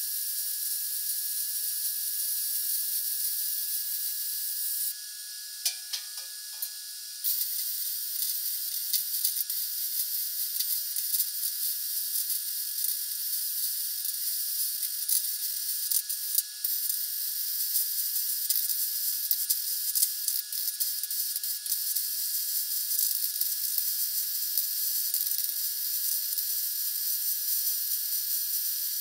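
Hobart Handler 190 MIG welder arc hissing and crackling as an angle-iron lip is welded onto a steel smoker firebox. The arc stops for about two seconds around five seconds in, with a few light clicks, then starts again.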